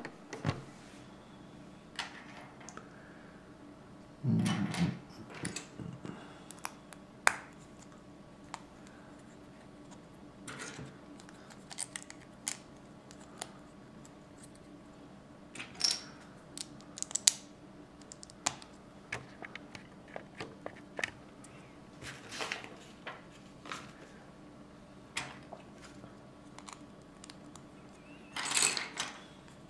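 Plastic LEGO bricks clicking and clattering as loose pieces are picked out of a pile and pressed together by hand: scattered short clicks, with a louder clatter about four seconds in and again near the end.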